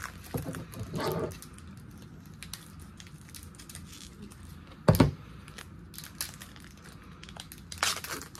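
Foil booster-pack wrapper crinkling as it is torn open and handled, with one short, loud sound about five seconds in.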